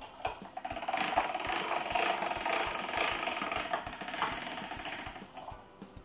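Hand-cranked Marcato Atlas 150 pasta machine being turned, its steel rollers and gears giving a fast, even clicking rattle as a sheet of egg-pasta dough is rolled through on the widest setting; the clicking dies down near the end.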